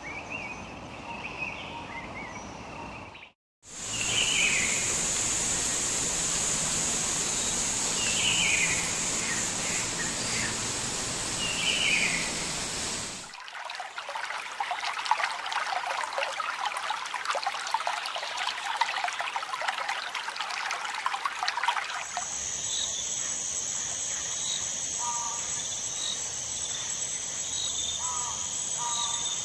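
Forest ambience in several short pieces: birds chirping over a noisy background and a steady high insect drone, with a stretch of dense crackling in the middle. The sound cuts out briefly a few seconds in, and each piece changes abruptly at its cut.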